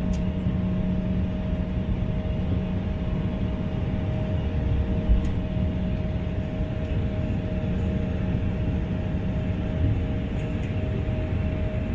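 Jet airliner cabin noise while taxiing: a steady engine rumble with a few steady hum tones, and a single low thump about five seconds in.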